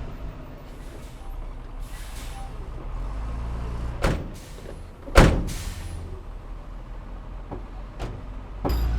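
Heavy diesel earthmoving machinery running steadily, broken by two sharp bursts about a second apart, the second louder with a short ringing tail; near the end the engine grows louder.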